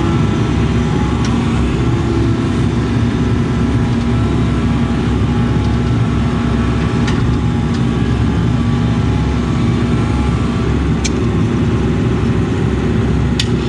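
Case CX80 excavator's diesel engine running steadily under digging work, heard from inside the operator's cab, with a few brief sharp ticks.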